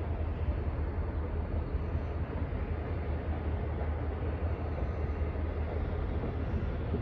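CSX diesel locomotive running with a steady low rumble as it moves slowly away.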